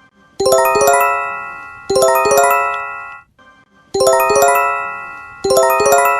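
Emergency alert attention chime: a quick cluster of struck, bell-like notes rings out and fades, repeating four times.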